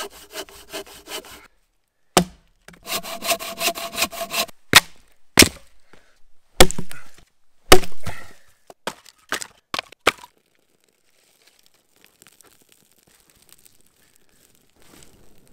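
Firewood being processed by hand: runs of quick rasping hand-saw strokes through wood, broken by several sharp blows splitting the wood, each with a crack, the loudest a little past the middle.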